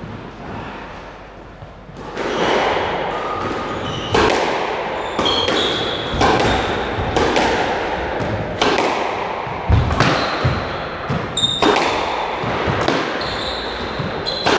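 Squash rally: the ball cracks off rackets and the walls about once a second, each hit echoing around the court, starting about two seconds in. Brief high squeaks of court shoes on the wooden floor come between the hits.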